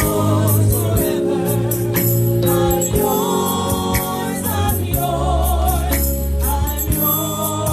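Gospel music: a praise team's voices singing together over bass and percussion.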